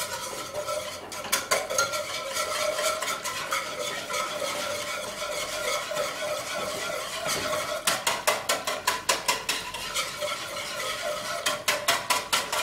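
Wire whisk beating eggs into milk in a stainless steel saucepan: quick, rhythmic clicking and swishing as the wires strike the sides of the pan, busiest and sharpest in the later part.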